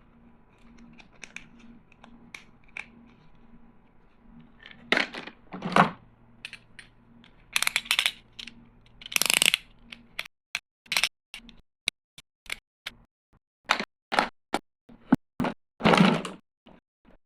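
Plastic toy tools and packaging being handled: a run of sharp clicks and taps, with a few longer scraping sounds in between.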